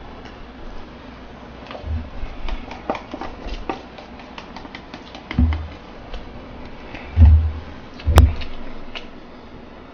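Eating and handling noises: paper noodle cups and chopsticks being worked, with scattered soft clicks and knocks, and two louder thumps about seven and eight seconds in.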